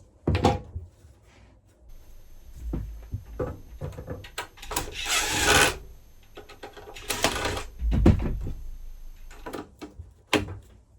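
Handling of metal furnace casing parts, screws and tools during dismantling: scattered clicks and knocks, with two short scraping bursts about five and seven seconds in.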